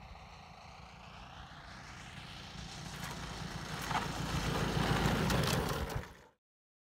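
Desert Aircraft DA-120 twin-cylinder two-stroke gasoline engine of a large radio-controlled Extra 300 SX running at low throttle as the plane comes in and rolls toward the microphone. It grows steadily louder, then cuts off suddenly about six seconds in.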